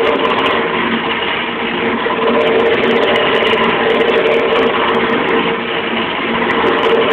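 Wood lathe running while a hand-held turning chisel cuts a spinning wooden spindle: a steady motor hum under the rough hiss of the cut.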